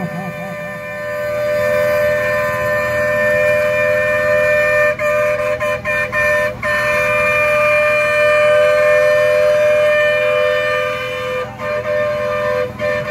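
Wind instruments holding long, steady notes at two close pitches together, with a few sharp knocks partway through and near the end.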